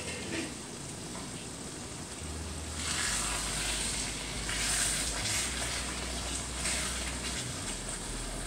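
Meatballs in tomato sauce sizzling and bubbling in a stainless skillet. From about three seconds in, a wooden spatula stirs and scrapes through the sauce.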